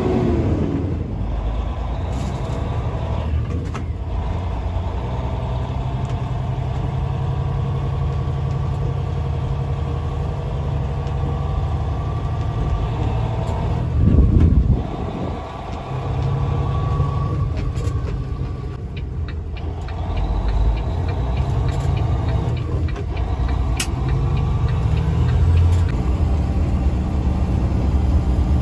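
Glider semi truck's diesel engine heard from inside the cab as the truck pulls away and drives onto the highway. The engine note breaks and changes pitch several times as it goes through the gears, with a short louder burst about halfway through.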